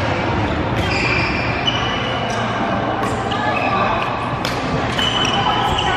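Badminton play in a large sports hall: several sharp racket-on-shuttlecock hits, short high squeaks of court shoes on the sports floor, and the echoing din of other courts.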